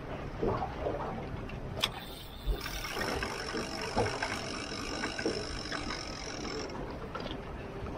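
A small boat's motor running under a steady noise of wind and water, with scattered knocks and a sharp click. For about four seconds in the middle a steady whine joins it.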